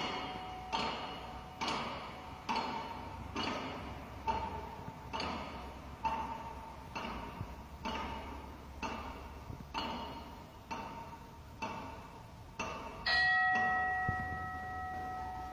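Background music of bell-like percussion: evenly spaced metallic hits a little faster than one a second, then a long ringing chime about thirteen seconds in that slowly dies away.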